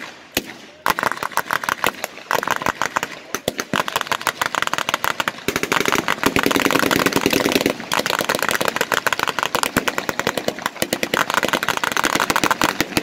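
Automatic blank gunfire in long rapid bursts, many shots a second, with short breaks between bursts, from the quad machine-gun mount on a WWII half-track.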